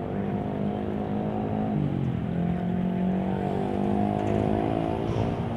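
Diesel locomotive engine running steadily with an even, pitched hum; the pitch drops a step about two seconds in, then holds.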